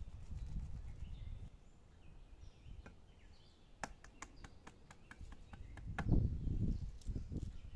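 A quick run of light clicks and taps of tableware being handled on the stone table, followed by a few low thumps, with small birds chirping faintly in the background.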